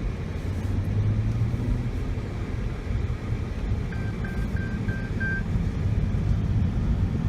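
Jaguar XE S's supercharged 3.0-litre V6 and road noise at a steady cruise, a low even drone with no big revving. About halfway in, five short high beeps sound in quick succession.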